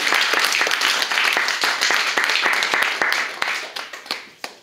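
Small audience applauding. The clapping thins out after about three seconds and ends with a few last claps near the end.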